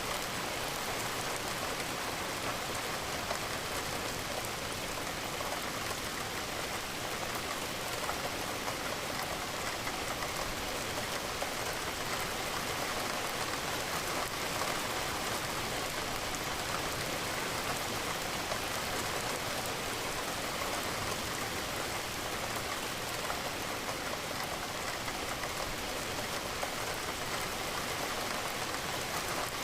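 Steady rain falling, a dense even patter of drops on a surface, with no change through the stretch.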